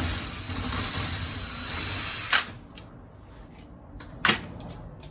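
Cordless drill/driver running for about two and a half seconds, unscrewing a through-bolt on a door lockset, and stopping with a click. A couple of sharp knocks follow about four seconds in.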